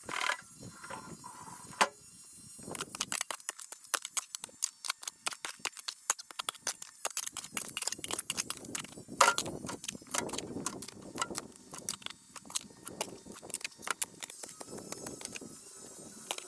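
Sped-up digging in soil: a fast, dense run of short scrapes and clicks of a digging tool, starting about three seconds in after a few separate strikes.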